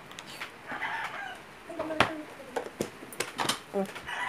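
Metal chopsticks clicking and scraping against a plastic container and a bowl as kimchi is served out, the sharpest click about two seconds in. A chicken calls in the background.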